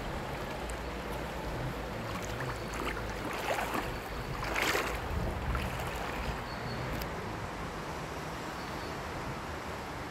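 Steady outdoor noise of wind on the microphone and moving water, with a brief louder rustling burst about four and a half seconds in.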